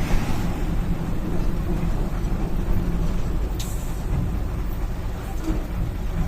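Diesel engine of a Mercedes-Benz Eurocar bus running steadily with a low rumble, and a brief air hiss about three and a half seconds in.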